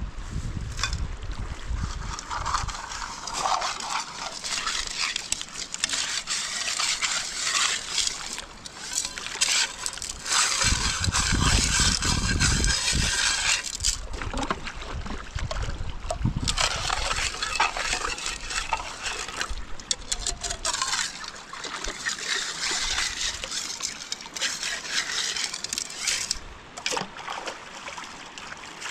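River water splashing and sloshing, rising and falling in strength, with a louder, deeper stretch around the middle.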